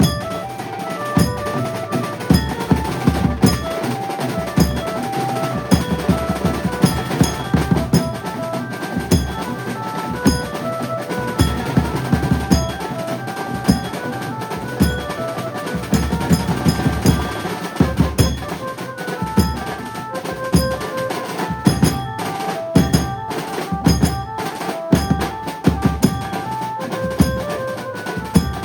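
A Konkan-style 'banjo' band playing loud, fast-driving drums with a melody of short, quick notes over them.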